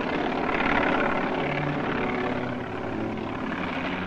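Helicopter engine and rotor running steadily as the helicopter flies off.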